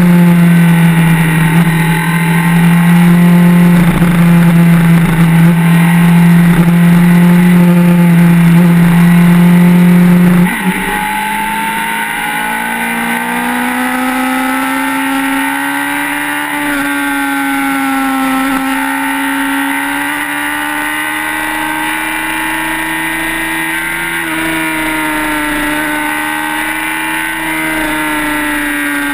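Sport motorcycle engine running hard at high revs at highway speed. It holds a steady, loud drone for about ten seconds. Then the level drops suddenly, and the engine note climbs slowly and wavers as the bike keeps accelerating.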